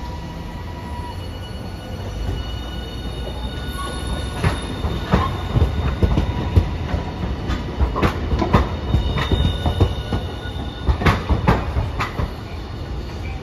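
Low-floor Hiroshima Electric Railway tram running past on the tram tracks, with a steady low rumble. From about four seconds in, its wheels knock irregularly over rail joints and pointwork, most thickly around the middle and again near the end, with a faint high wheel squeal.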